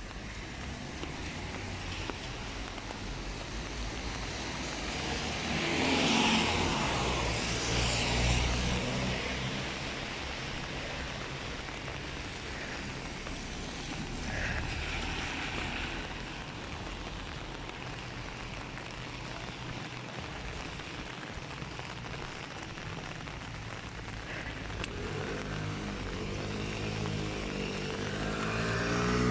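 Cars passing on a rain-wet street over a steady hiss, one about six seconds in and another coming closer and getting louder near the end.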